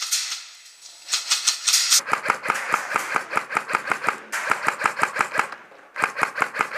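Airsoft gun firing in rapid bursts of sharp cracks, several shots a second: a long burst of about three and a half seconds, a short pause, then another burst.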